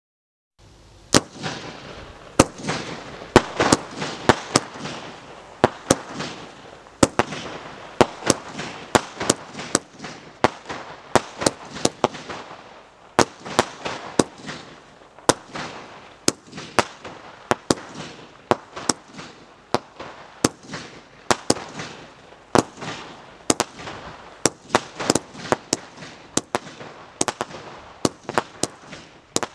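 A 50-shot red crossette fireworks cake firing: a fast run of sharp bangs and cracks, about two to three a second, over a steady hiss, starting about half a second in.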